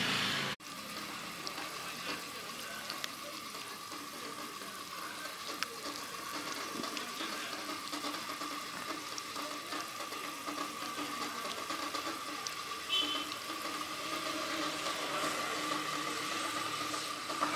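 Small fish deep-frying in oil in a miniature clay pot: a steady sizzle and bubbling with a few faint crackles.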